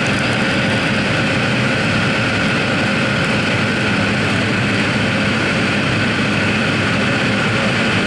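Airliner engine drone heard from inside the passenger cabin on approach for landing: a steady hum of several constant tones over even air noise, unchanging throughout.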